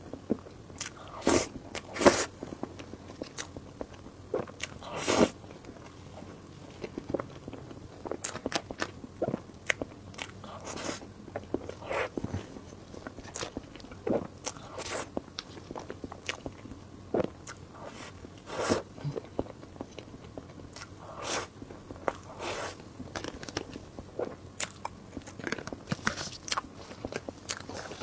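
Close-miked eating: a person chewing and biting with wet clicks and crunches coming at an irregular pace, a few louder bites standing out.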